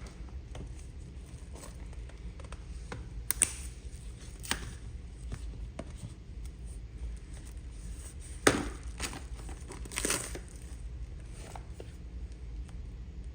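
Packaging being handled and opened: intermittent crinkling and tearing, with a few sharper clicks and rustles, the loudest around 3 to 4 seconds in and again around 8 to 10 seconds in.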